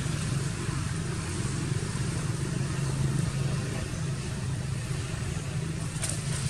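A steady low engine hum with a noisy hiss over it, unchanging throughout.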